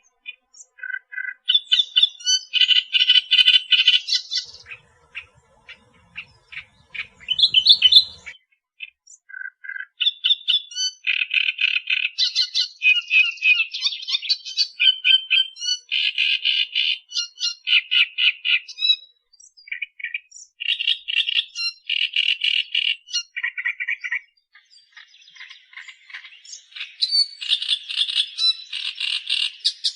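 Australian reed warbler singing: bursts of rapid repeated notes lasting a few seconds each, separated by short pauses.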